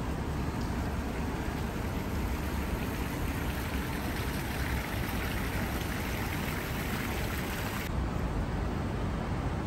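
Steady hiss of light rain with a low rumble underneath; the high part of the hiss drops away abruptly about eight seconds in.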